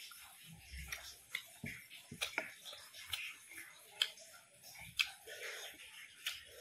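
Close-miked eating sounds: chewing of raw leafy greens and grilled fish, with sharp wet mouth clicks and smacks at irregular intervals, a few each second.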